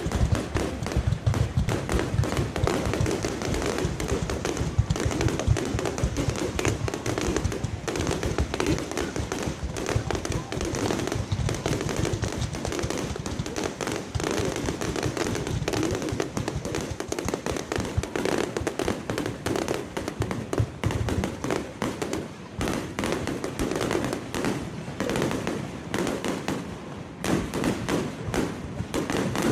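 Fireworks display going off in a dense, unbroken run of bangs and crackles, many bursts a second overlapping one another.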